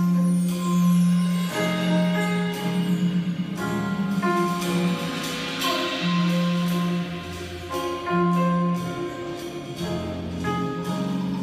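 A large jazz band and symphony orchestra playing live under a conductor, with held low notes that change every second or two beneath layered higher parts.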